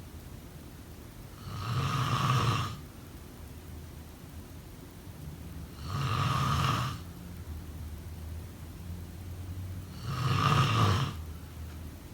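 A sleeping person snoring: three snores about four seconds apart, each lasting about a second.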